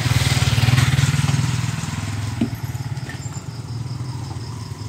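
Deep, steady bass rumble from large sound-system speaker cabinets, loudest in the first second and a half and then easing off.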